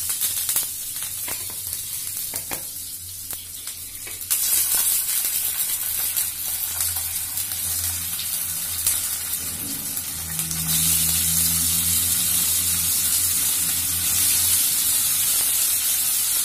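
Hot oil sizzling in a frying pan with mustard seeds, as boiled dough rounds are laid in to fry. The sizzle grows louder about four seconds in.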